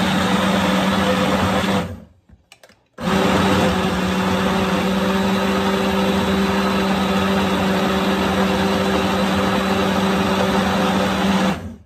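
Small bullet-style personal blender running, grinding dried prunes and apples into a thick paste, with a steady motor hum. It cuts off about two seconds in, starts again a second later, and runs on steadily until just before the end.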